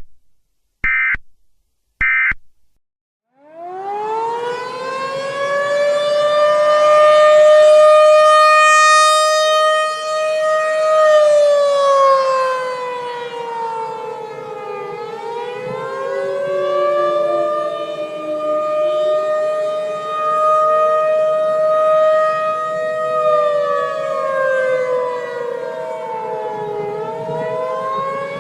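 Three short bursts of EAS data tones, the end-of-message signal, then an outdoor civil defense tornado siren winds up about three seconds in. It wails loudly, holding its pitch for several seconds, then dropping and climbing again in long slow cycles.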